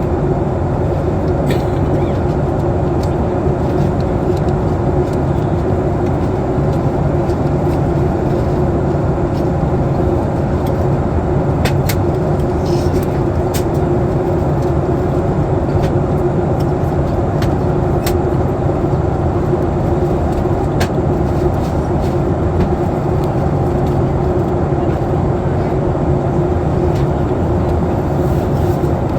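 Cabin noise inside a Boeing 737 MAX 8 in descent: a steady rush of airflow and engine noise with a low steady tone in it, and a few faint clicks.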